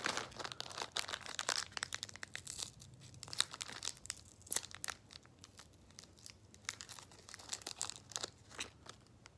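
Crinkly plastic parts packaging handled in the fingers: irregular crackles and rustles that thin out toward the end.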